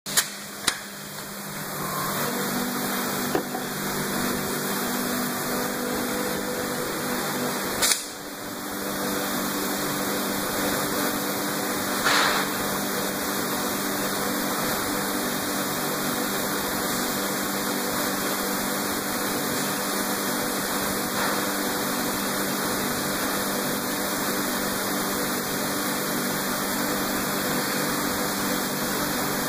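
Extrusion blow moulding machine running: a steady mechanical hum of its motors and hydraulics, with a few sharp clicks in the first eight seconds and a short hiss about twelve seconds in.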